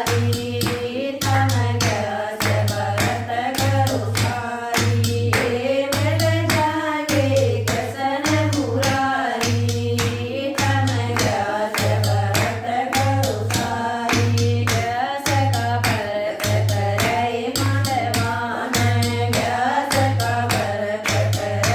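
A group of women singing a Haryanvi devotional bhajan in unison, with steady rhythmic hand clapping and a low hand-drum beat underneath.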